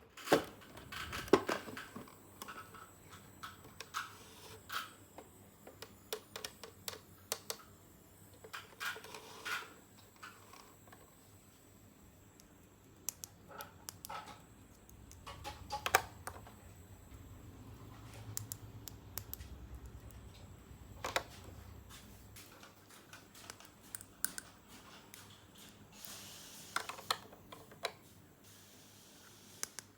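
Small plastic toy pieces being handled, tapped and set down. Irregular clicks and light knocks, the loudest a couple of strokes about a second in and one near the middle.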